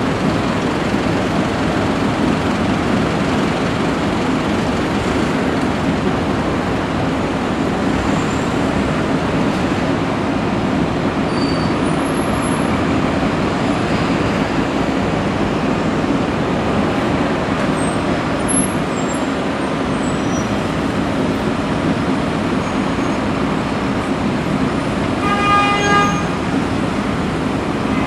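Steady city street traffic noise from idling and slow-moving cars, taxis and trucks. Near the end a vehicle horn honks once for about a second.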